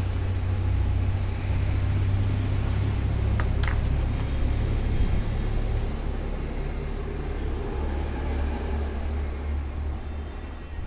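A Mishuk three-wheeler's engine and gearbox running with a steady low drone, settling to a lower pitch about six seconds in, with two short clicks near the middle.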